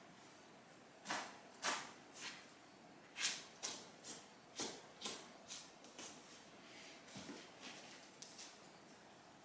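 Footsteps: faint crunching steps, about two a second, for some five seconds before tailing off.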